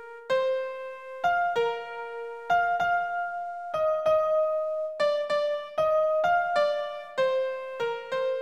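Background music: a keyboard plays a simple melody of single notes, one at a time, each struck and fading.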